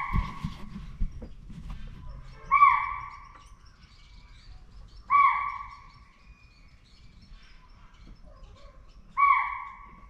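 Spotted deer (chital) alarm call: a shrill, sharp call that drops in pitch, repeated four times a few seconds apart. It is the deer's warning of a predator, which the observer suspects may be a tiger.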